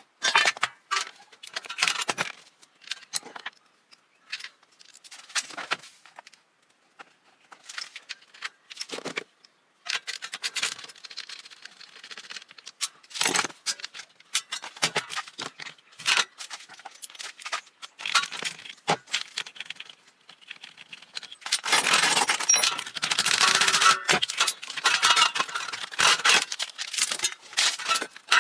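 Metal clinking and rattling from an exhaust fan being taken apart by hand with tools: scattered sharp clicks and clatters, turning into a denser, louder stretch of rattling for the last several seconds.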